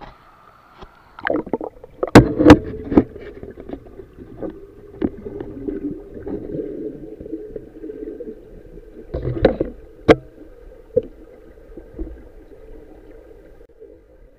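Muffled underwater sound from a camera held below the surface as a diver moves among submerged logs and rocks: a low steady hum with sharp knocks and clicks, several about two seconds in and another cluster about nine to ten seconds in.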